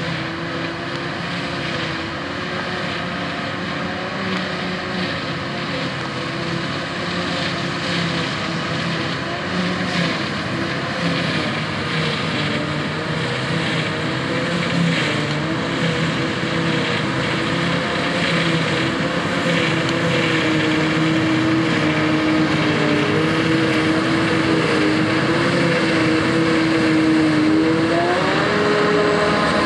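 Heavy farm machinery engine running steadily under load, its pitch climbing near the end as it revs up.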